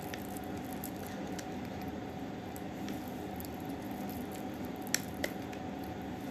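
Wet rice stuffing squishing and clicking softly as fingers pack it into a hollowed zucchini (koosa) for mahshi, with two sharper clicks about five seconds in.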